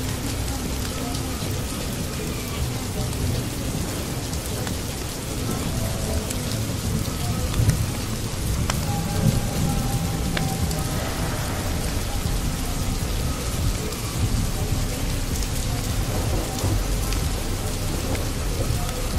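Steady rain with low rumbling thunder, the rumble swelling briefly about eight and nine seconds in.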